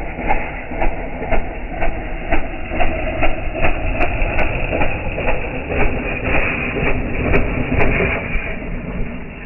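Mini bike's small engine running, heard slowed down as a low rumble with regular knocks about twice a second.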